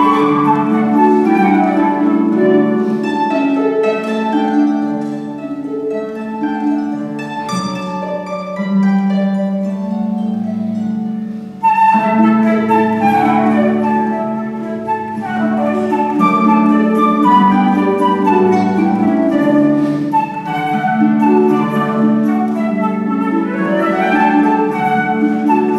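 Flute and concert harp duet: a flute melody over harp chords and arpeggios, with sweeping harp glissandi at several points. The playing dips briefly just before halfway and comes back in strongly.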